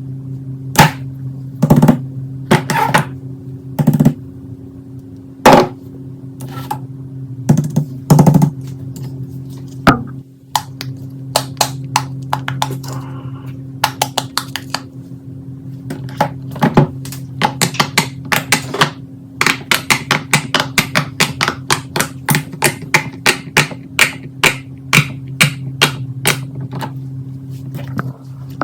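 Fidget toys being pressed and handled, making sharp clicks and pops. The pops come about a second apart at first, then turn into a quick run of several clicks a second from about halfway through. A steady low hum sits underneath.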